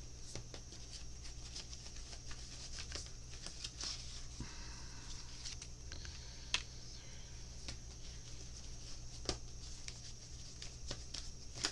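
Tarot cards being handled: faint taps, clicks and a brief rustle as the cards are shuffled and laid out, over a steady low hum. A sharper tap comes about six and a half seconds in and another near nine seconds.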